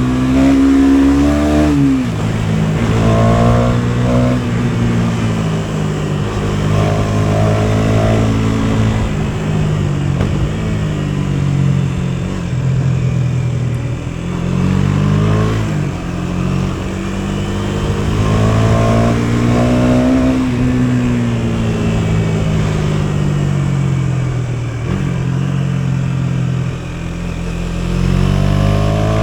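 KTM Duke 250's single-cylinder engine under way, its note rising with throttle and dropping sharply at each gear change, several times over.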